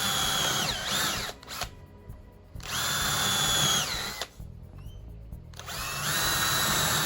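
Power drill pre-drilling screw holes in timber: three separate runs, each spinning up to a steady high whine and winding down, with short pauses between.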